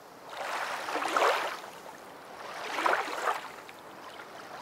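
Rushing water, swelling up twice, about a second in and again around three seconds, then easing off.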